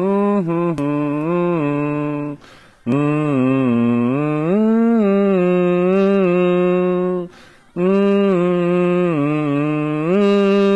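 A man humming a song's melody with his mouth closed, in three long phrases broken by two short pauses.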